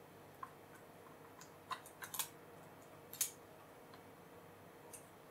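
A few faint, sharp clicks and taps from small plastic and metal parts handled inside an opened Fujitsu Siemens LifeBook E8010 laptop. There is a cluster of clicks around two seconds in, and the loudest comes a little after three seconds.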